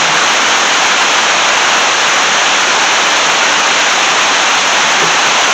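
Water rushing at a river dam: a steady, loud, even rush of falling water.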